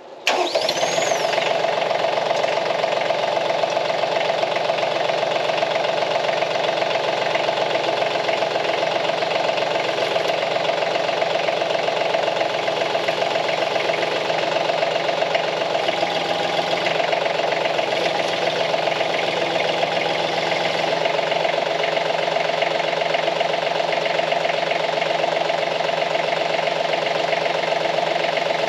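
Branson 2515h compact tractor's three-cylinder diesel engine running steadily, cutting in abruptly just after the start, while the front loader lifts a pallet-fork load of about 1,300 pounds of water.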